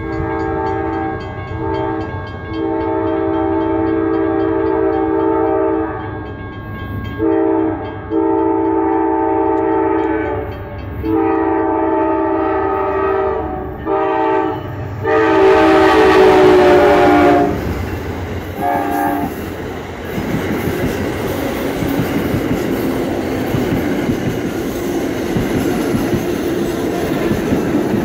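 Amtrak P42DC diesel locomotive's multi-note air horn blowing a series of blasts, mostly long with a couple of short ones, as the train approaches; the last long blast, about halfway through, is the loudest as the locomotive draws close. After a short final toot, the passenger cars roll past with steady wheel and rail noise.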